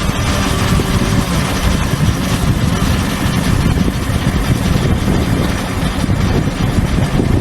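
Excavator engine running steadily.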